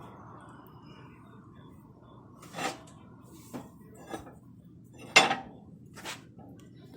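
Loose pieces of metal clanking against one another as they are handled: five separate clanks, the loudest about five seconds in.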